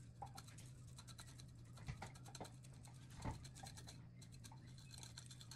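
Garlic salt shaken from a plastic shaker: a faint, rapid, scratchy rattle of grains, with a couple of soft knocks, over a steady low hum.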